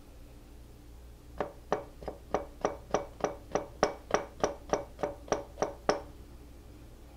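Chef's knife slicing a small orange pepper into thin rings on a plastic cutting board: about sixteen quick, even knife strikes, roughly three a second, starting about a second and a half in and stopping about six seconds in.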